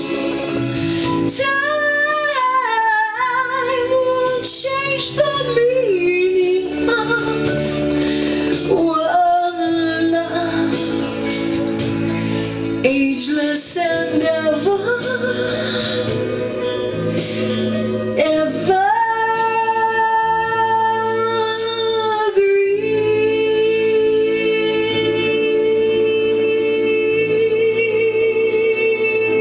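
A woman singing solo over an instrumental backing track: quick runs that bend up and down through the first half, then long held notes, the last one sustained with vibrato to the end.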